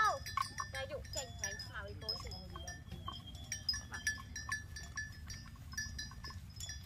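Irregular light clinking of a small bell on the cattle, sounding at the same few fixed pitches each time, over a steady low rumble. A few short high calls sound in the first two seconds.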